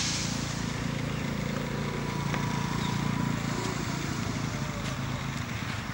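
A tractor's diesel engine running steadily at a low, even speed.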